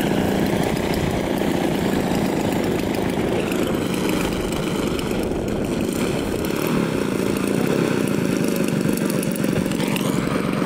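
Radio-controlled model airplane's small gas engine running steadily at low throttle while the plane sits on the ground or taxis. An uneven low rumble underneath is wind buffeting the microphone.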